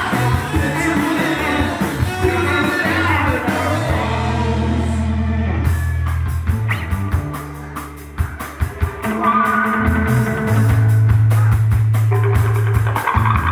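Live rock band playing, with electric guitars, bass and drum kit. A male singer yells and sings over it for the first few seconds. The band drops off briefly about eight seconds in, then comes back in loud.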